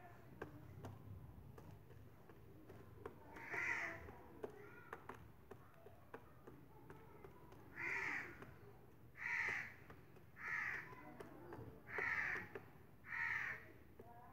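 Crow cawing: six short, harsh calls, one about four seconds in and then five more roughly a second apart.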